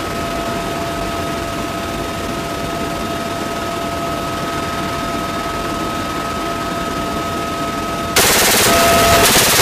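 Steady helicopter noise heard from inside the cabin with the door open, a constant high whine over the engine and rotor noise. About eight seconds in, a door-mounted machine gun opens fire in a long, dense burst that is much louder.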